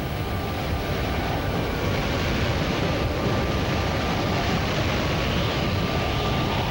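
Wind of a close tornado: a steady, loud rushing noise on camcorder audio, with gusts buffeting the microphone in a low flutter.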